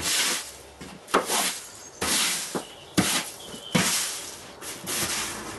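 A broom sweeping wood shavings across a concrete floor. There are about six quick strokes roughly a second apart, each a short swish that starts sharply and fades.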